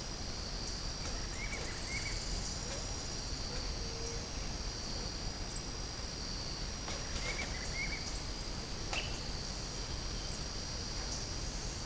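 Insects trilling in a steady, high, unbroken drone, with a few short chirps scattered through it.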